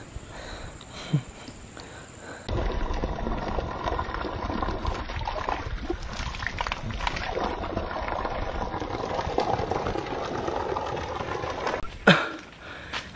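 Water pouring steadily out of the open end of a pipe and splashing over a drinker's face and onto the ground. It starts suddenly about two seconds in and stops near the end.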